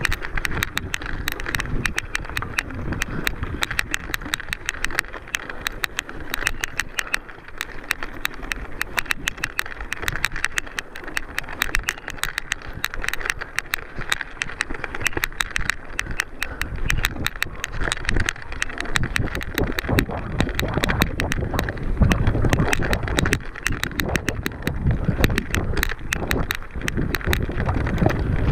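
Mountain bike ridden fast over rough ground, with a constant clatter and rattle of the bike and tyres and wind buffeting the microphone, heavier in the last few seconds.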